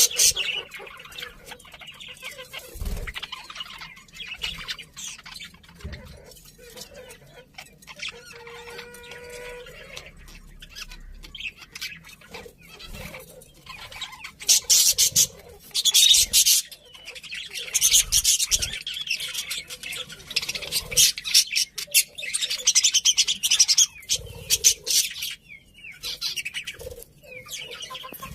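Budgerigars chirping and chattering in quick high bursts, getting louder and busier about halfway through.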